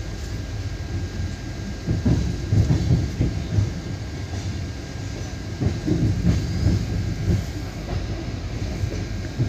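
A passenger train running, heard from on board: a steady low rumble of wheels on track, with two runs of loud clacking over rail joints, about two seconds in and again around six seconds in.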